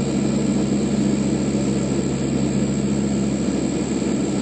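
Lockheed L-188 Electra's Allison turboprop engines running steadily in flight: an even propeller drone made of several fixed low tones, with a thin steady high whine over a rushing noise.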